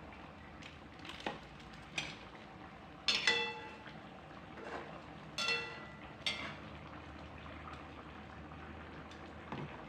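Coconut-milk curry simmering in a wok while a spoon is knocked and stirred against the pan, giving several clicks and two louder ringing clinks about three and five and a half seconds in.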